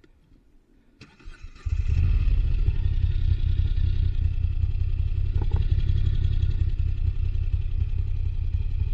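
Moto Guzzi V85TT's air-cooled V-twin being started: a short burst of starter cranking about a second in, then the engine catches and runs steadily with a deep, even rumble.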